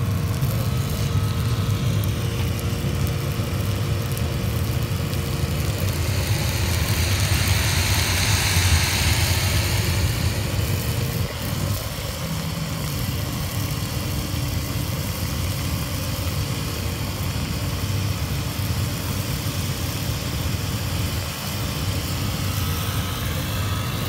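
Steam-cleaning machine with a diesel water heater running steadily, its engine and pump droning, while the wand sprays hot water and steam with a hiss that swells for a few seconds in the middle and then eases back.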